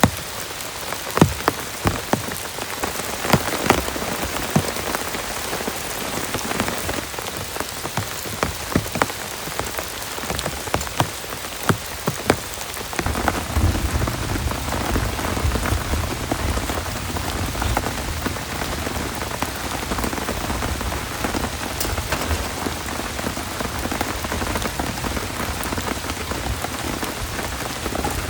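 Heavy rain falling, with large drops striking a surface one by one in sharp taps. About halfway through, the rain thickens into a denser, steadier downpour.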